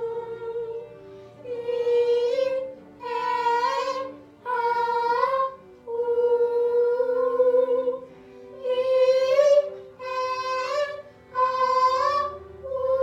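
Children and a woman singing a vocal warm-up on high notes: about eight held notes, each roughly a second long with short breaks, several sliding up slightly at the end.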